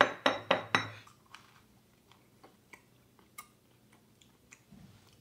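A rock-hard slice of peanut thick toast knocked against a plate about five times in quick succession in the first second, with sharp knocks and a slight ring, showing how hard the toast is. After that come faint small clicks of biting and chewing.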